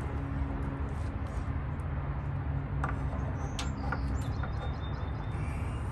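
A steady low background hum, with birds chirping a few times about halfway through and some light clicks from small parts being handled.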